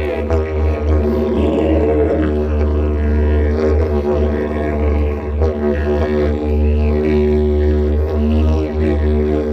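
Didgeridoo playing an unbroken low drone, its overtones sweeping up and down as the player shapes the sound with mouth and breath.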